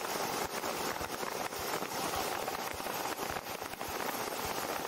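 Steady cockpit noise of a Cessna 172 on short final, its engine and propeller heard as an even hiss with faint crackle through the headset recording, between radio calls.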